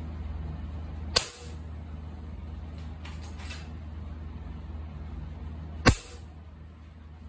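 FX Impact M3 .25 PCP air rifle firing twice, about five seconds apart, each shot a sharp crack as a 33-grain hollow-point slug at about 870 fps smacks into a lead ingot. A few faint clicks fall between the shots, over a steady low hum.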